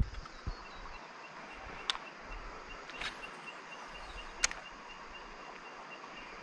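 Quiet outdoor ambience with a faint, high chirp repeating steadily several times a second and a few short sharp clicks.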